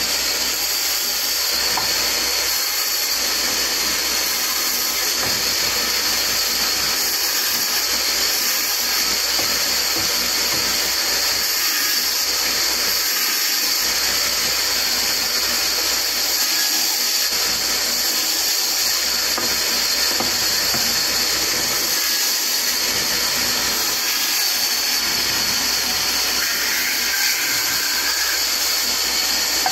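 Band saw running steadily with a constant high hiss as a wooden block is fed by hand through its blade.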